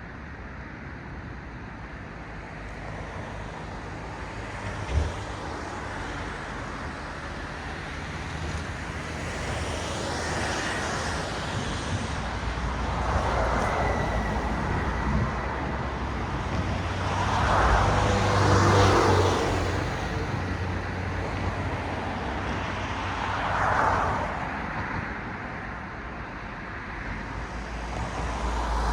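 Cars passing one after another on a road, each a swell of tyre and engine noise that rises and fades. The loudest pass comes about two-thirds of the way through, with a short sharp knock about five seconds in.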